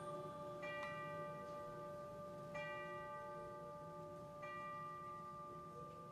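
Tubular bells (orchestral chimes) struck three times, about two seconds apart, over a long ringing tone that slowly fades.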